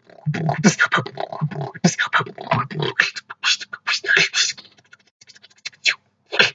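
Solo beatboxing: rapid percussive beats made with the mouth and voice, recorded through a poor-quality microphone. The beat thins to a few faint clicks about five seconds in, then comes back hard near the end.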